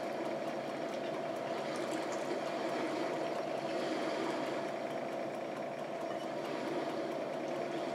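A steady, even machine-like hum, such as a fan or air conditioner running in the room, with faint soft clicks and chewing from someone eating.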